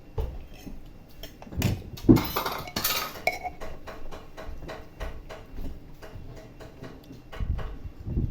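Dishes and cutlery clinking and knocking during a meal: a run of short sharp clicks, with a louder scraping rush about two to three seconds in.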